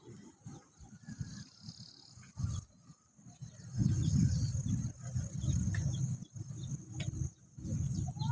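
Outdoor low rumbling noise in uneven gusts, growing louder about four seconds in, with a faint steady high chirring of insects underneath.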